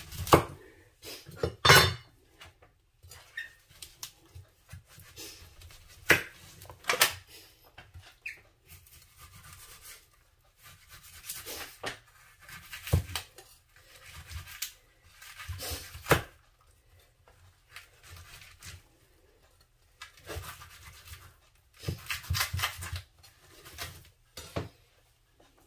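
Irregular knocks and clatter of things being handled, with a few loud sharp ones and quieter rustling between.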